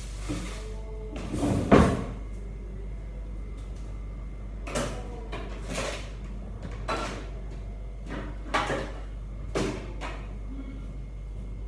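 Kitchen clatter: a string of separate knocks and bumps, roughly one a second, the loudest about two seconds in, as cupboard doors and cookware are handled.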